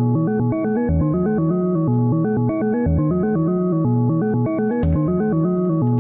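Eurorack modular synthesizer voice playing a steady stepped melodic sequence from a Make Noise René sequencer. The same short pattern repeats about every two seconds.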